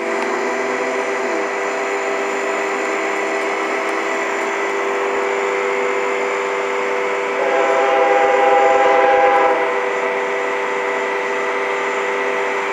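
Distant BNSF diesel locomotive's air horn sounding one blast of about two seconds, a little past the middle, over a steady mechanical hum that runs throughout.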